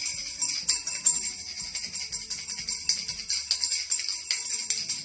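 Stainless steel chopsticks clinking rapidly and continuously against a glass bottle, making a dense high-pitched jingling ring.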